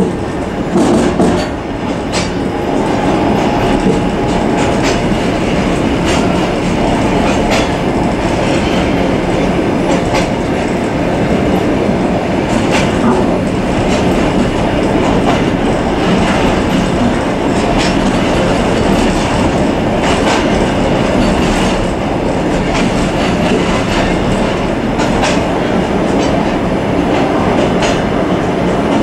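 Suburban train running along the track, heard from inside its rear vestibule: a steady rumble of wheels on rails, with sharp clicks now and then.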